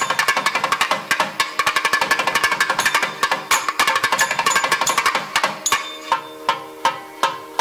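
Traditional South Indian music: fast, dense drum strokes over held melodic tones, the drumming thinning to about two strokes a second from about six seconds in.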